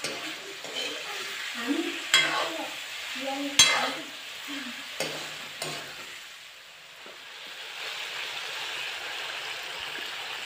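Chicken pieces sizzling in hot oil in a steel wok, stirred with a steel ladle that clanks sharply against the pan three times in the first half. A steady frying sizzle continues after that, easing for a moment about two-thirds of the way in.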